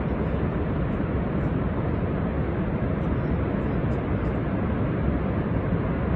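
Niagara Falls' water pouring over the falls and crashing onto the rocks below: a steady, unbroken roar, heaviest in the low end.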